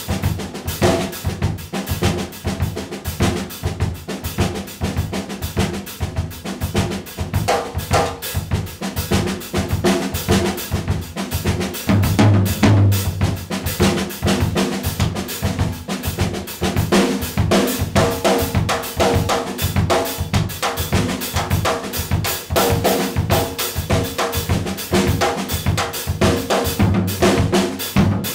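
Solo drum kit playing an Afro-Cuban-influenced groove: bass drum, snare with rimshots, toms and cymbals in a dense, unbroken rhythmic pattern. Deeper tom notes come forward about twelve seconds in.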